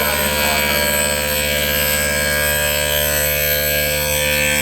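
CNC machine running steadily: a constant machine hum and whine made of several held tones.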